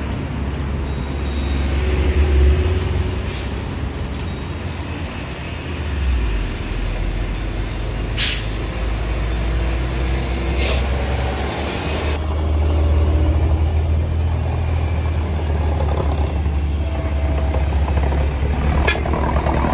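Truck engines running with a heavy, steady low rumble. There are a few short sharp hisses about eight and eleven seconds in and near the end, with a longer hiss just after eleven seconds.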